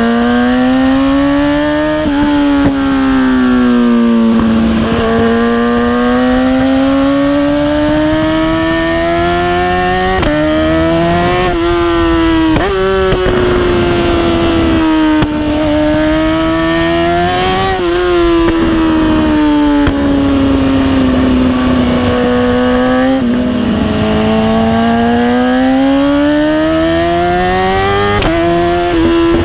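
The inline-four engine of a 2010 BMW S1000RR with an Austin Racing exhaust, revving up and easing off several times, with sudden breaks in pitch from quickshifts. Exhaust pops and crackles come on the shifts and on deceleration.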